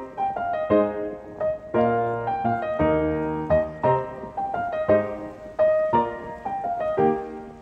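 Background piano music: a slow melody of single notes and chords, with new notes struck roughly once a second and fuller chords around the middle.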